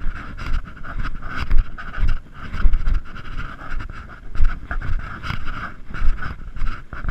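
Heavy breathing of someone walking a steep hill track, with regular low thumps of footfalls about every half second to a second.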